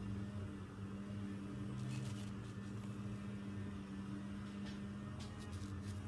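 Slime being handled, giving a few faint sticky clicks and pops, over a steady low hum.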